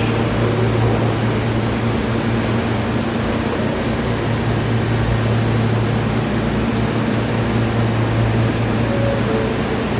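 Steady noise of an R160 subway train and the station around it, with a constant low hum and no squeal or sudden sounds.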